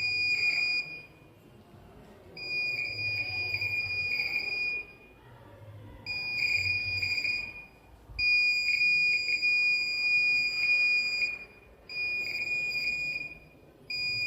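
Laser alarm circuit's electronic buzzer sounding a steady high-pitched tone, triggered when the beam is broken. It switches on and off in six bursts of uneven length, from under a second to about three seconds.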